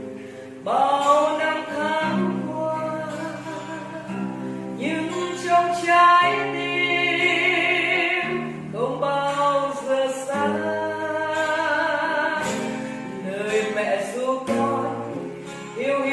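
Music with singing: a voice sings long, held phrases over instrumental backing with a steady bass line, a new phrase starting about every four seconds.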